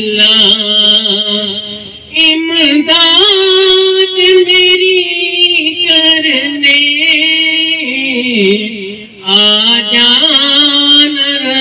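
A man singing a naat (Urdu devotional song) into a handheld microphone in long, wavering held notes that glide up and down, with no words made out. The singing breaks off briefly about two seconds in and again near nine seconds.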